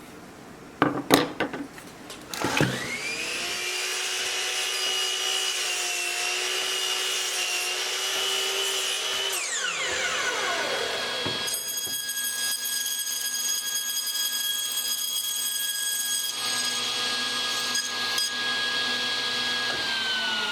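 A few sharp knocks, then a handheld power carving tool spins up with a high whine, runs steadily and winds down. A second run starts a couple of seconds later and winds down near the end.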